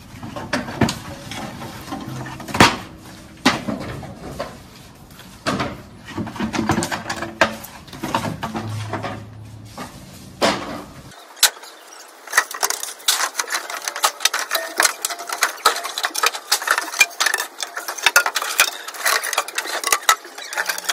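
Bamboo poles knocking and clattering against wood and stone: a string of sharp, irregular wooden knocks, coming thicker after about halfway.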